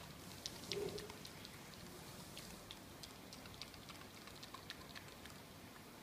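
Miniature dachshund licking and gnawing a raw lamb shank: faint, scattered wet clicks and smacks from its mouth on the meat, busier in the first half and thinning out later.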